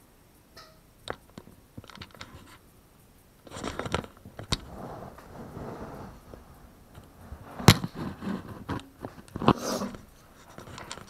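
Plastic tub of a snake rack sliding back into its shelf, with scraping and scattered knocks and one sharp knock about two-thirds of the way through.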